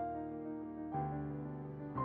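Slow piano background music, a new chord struck about once a second and left to ring.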